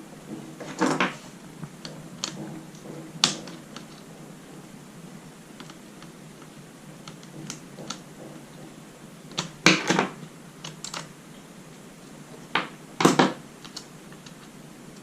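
Plastic clips of an HP x360 laptop's case snapping into place as the case is pressed shut: scattered sharp clicks, the loudest about a second in, around ten seconds in and twice near thirteen seconds.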